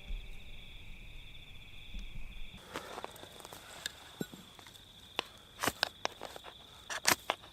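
Insects trilling steadily in two high, even tones; the lower one drops out a little over two seconds in. From about three seconds in come scattered sharp clicks and knocks, which grow more frequent near the end.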